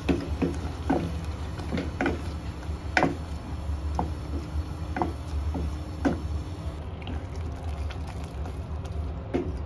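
Spoon or spatula stirring tomato paste into a masala in a pan, with short knocks and scrapes against the pan about once a second over a steady low hum.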